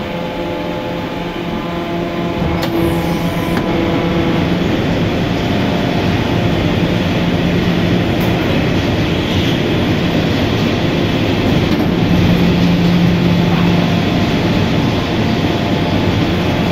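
Industrial high-density baler and packing machinery running: a loud, steady mechanical din with a low hum that fades and comes back stronger about twelve seconds in.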